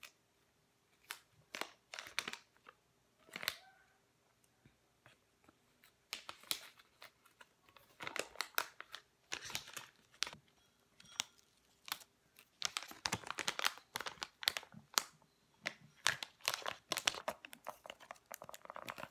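Plastic packaging crinkling and rustling in irregular bursts with small sharp clicks, as a DNA kit's saliva collection tube and its cardboard box are handled. Sparse and brief for the first few seconds, nearly quiet for a moment, then busier from about six seconds in.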